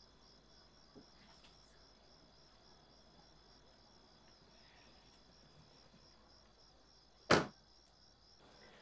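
Crickets chirping steadily in a soft, even pulse, with a single loud thump about seven seconds in.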